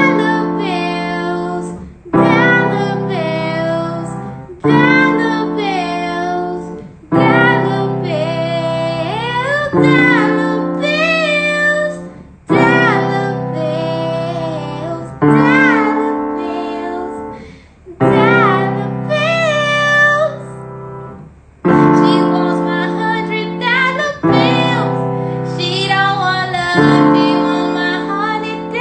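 A woman singing over piano chords. The chords are struck about every two and a half seconds and left to ring out.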